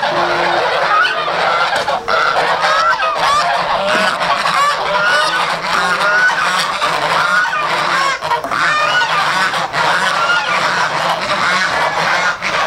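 A flock of white domestic geese honking, many short calls overlapping without a break.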